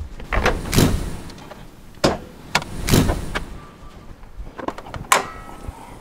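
A few short scuffing thuds, then a sharp metallic clack with a brief ring about five seconds in, from a pickup's hood latch and hood as the hood is raised.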